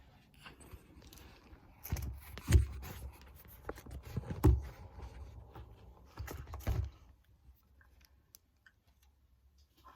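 Items being handled and set down in a refrigerator: a series of knocks, clunks and scrapes, the loudest about two and a half and four and a half seconds in.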